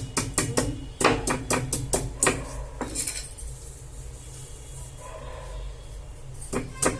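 Pestle pounding ginger and cinnamon paste in a mortar: sharp knocks at about two a second, pausing for a few seconds in the middle before starting again.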